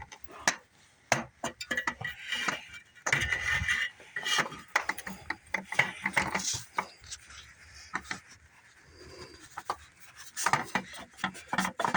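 Irregular clinks, knocks and scraping of metal parts and hand tools as a replacement starter motor is fitted and bolted into place, with a quieter stretch near the end.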